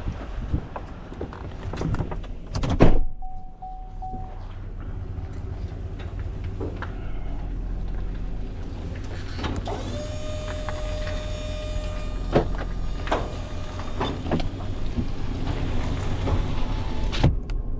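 A vehicle door shuts with a bang about three seconds in, then the engine runs with a steady low hum under scattered clicks. Two short steady tones sound, one just after the door shuts and another about ten seconds in.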